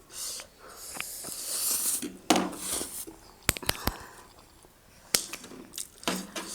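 Eating sounds: spicy noodles slurped in a hissy rush lasting about a second, then a few sharp clicks of a utensil against a bowl and shorter mouth noises.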